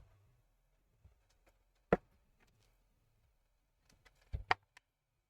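A few sharp clicks and taps of small repair tools handled on a bench: one about two seconds in, then a quick run of three or four near the end.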